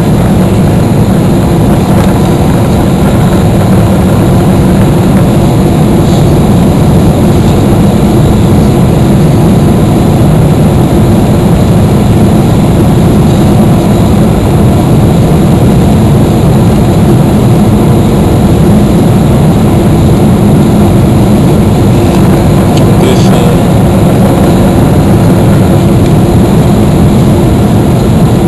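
Steady cabin noise of a Boeing 777-300ER on final approach, heard from inside over the wing: its GE90 engines and the airflow over the extended flaps make a constant loud rushing noise with a low hum.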